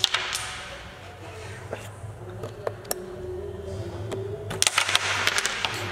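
Carrom striker flicked across the board: a sharp click as it strikes the coins, followed by the pieces sliding. Scattered clicks follow as wooden coins knock together and against the frame, with a quick cluster of them near the end.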